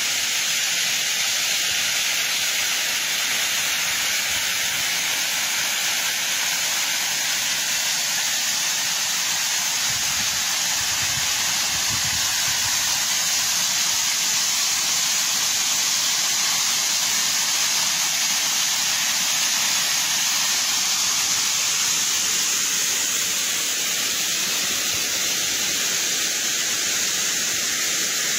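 Small waterfall rushing steadily, an even hiss of falling water with no break.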